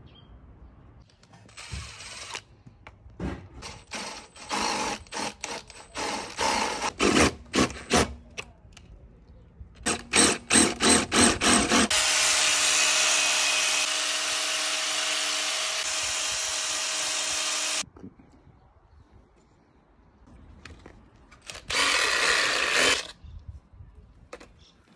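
Electric angle grinder grinding burrs off a cut steel plate: a steady run of about six seconds in the middle. Before it come a series of short, stop-start power-tool bursts, and near the end there is one more brief run of a power tool.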